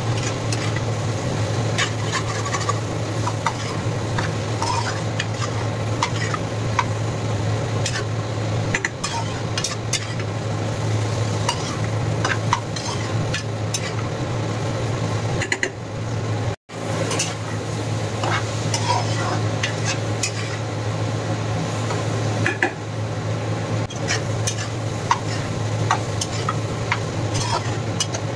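Metal spatula stirring and scraping ridge gourd and egg around a nonstick frying pan, with frequent clicks of the spatula against the pan over the sizzle of frying. A steady low hum runs underneath, and the sound breaks off for an instant about two-thirds of the way through.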